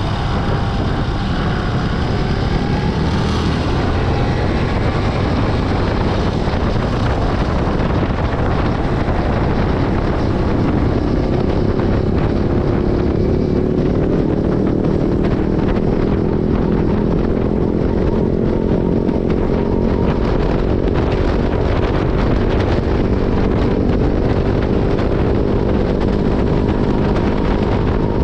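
Yamaha Byson FZ16 motorcycle's single-cylinder four-stroke engine running through its stock exhaust, a steady drone whose pitch slowly climbs from about a third of the way in.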